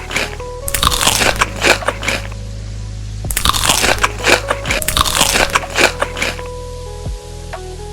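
Close-up crunching of crisp food being bitten and chewed, in two bouts of rapid crunches, with a simple background melody throughout.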